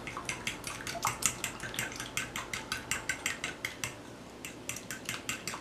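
A spoon stirring a runny yeast-and-egg mixture in a glass mixing bowl, clinking against the glass in quick, even strokes of about four or five a second.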